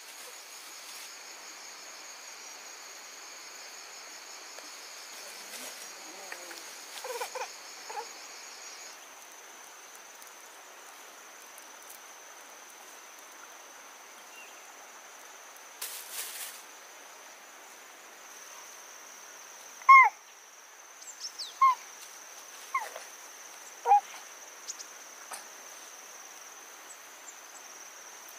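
Insects, crickets or cicadas, chirring steadily in a high tone. An animal breaks in with a handful of short falling calls, a couple near seven seconds in and a cluster in the last third, the loudest two about twenty and twenty-four seconds in.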